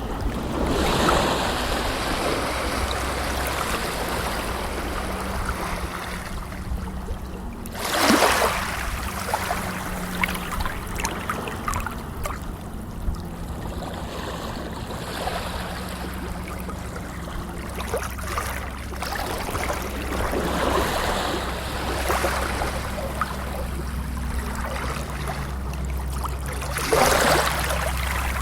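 Moving water washing and splashing steadily, with louder surges about a second in, about eight seconds in and near the end, over a steady low rumble.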